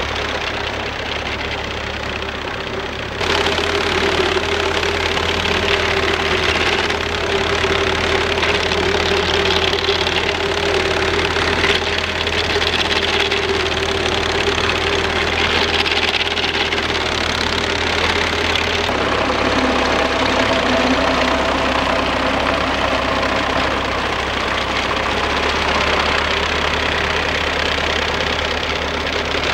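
Fordson Super Major tractor's four-cylinder engine running steadily under load while pulling a reaper through oats, with the reaper's cutter bar clattering. The sound grows louder and brighter about three seconds in.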